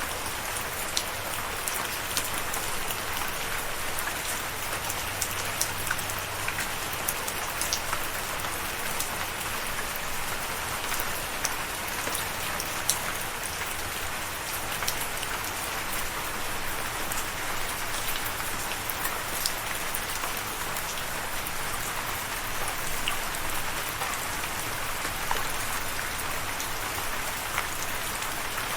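Steady rain falling, a continuous hiss with many individual drops ticking and pattering on a surface.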